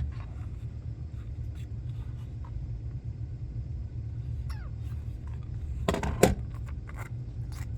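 Plastic screen-protector installation kit being handled: light taps and a short squeak, then two sharp clicks about six seconds in, over a steady low hum.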